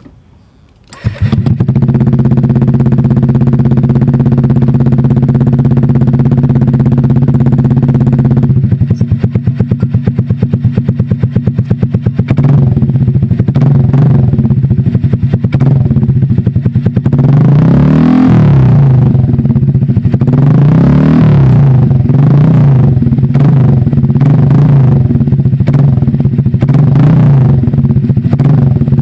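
Honda Click scooter's single-cylinder engine running loud through an SC Project aftermarket exhaust with no silencer insert fitted. It comes in about a second in, idles steadily, and is blipped up in two short revs about two-thirds of the way through before settling back to idle.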